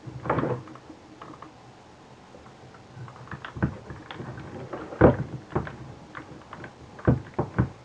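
Irregular clicks and knocks of video camera parts being handled and pried apart. Several sharper knocks are spread through, the loudest about five seconds in.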